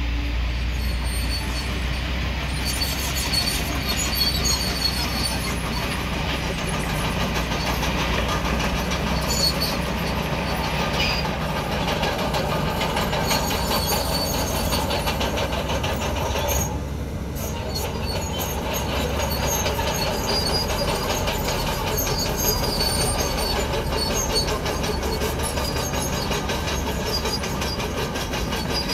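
Komatsu crawler bulldozer working: a diesel engine runs steadily while its steel tracks squeal on and off with a high-pitched note. The sound dips briefly about halfway through.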